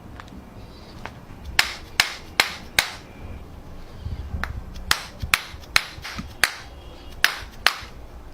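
Runs of sharp taps, about two or three a second: four in a row, a pause of about two seconds, then more at the same pace to the end.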